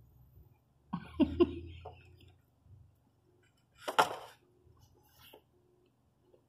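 A person eating: a few short coughs about a second in, then one loud, short slurp as a forkful of noodles is drawn into the mouth about four seconds in.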